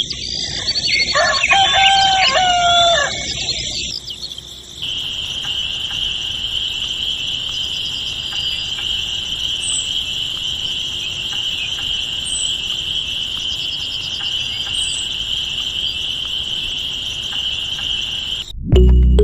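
A rooster crowing once, a long wavering call. Then a steady high-pitched buzz with faint short chirps every couple of seconds, which cuts off abruptly near the end.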